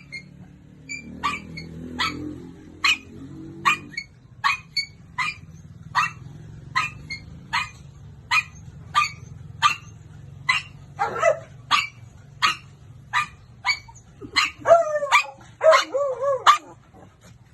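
A dog barking over and over in short, sharp barks, about one and a half a second. Near the end a few barks stretch into longer, wavering yelps.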